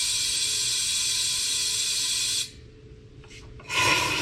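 Compressed air from an air-compressor blow gun hissing into an emptied lawn mower gas tank to blow it clean. One long blast stops about two and a half seconds in, and another starts near the end.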